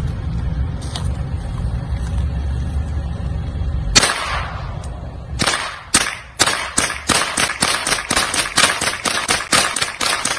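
Gunfire from a firearm: a low rumble, then a single shot about four seconds in, then from about five and a half seconds a long string of rapid shots, about four or five a second.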